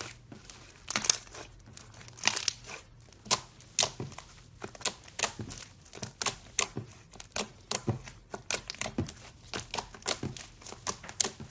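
Thick slime being kneaded, pressed and pulled apart by hand, giving sticky crackles and small pops at irregular intervals, a few each second.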